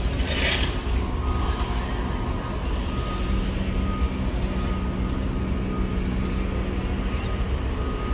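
Sydney Trains Waratah electric train running along the tracks: a steady low rumble with a faint, steady high whine from about a second in. A short hiss comes about half a second in.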